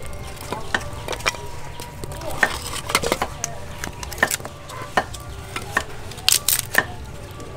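Thin sticks of split firewood being laid into a clay charcoal stove: irregular light knocks and clatters of wood on wood and clay, with a quick cluster of sharper clicks near the end.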